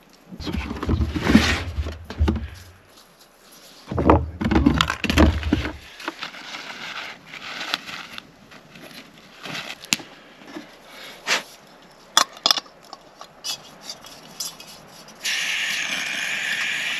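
Camping gear handled with knocks, clicks and metal clinks, then about two seconds from the end a sudden steady loud hiss: propane escaping as a small propane bottle is screwed on while its valve is left open.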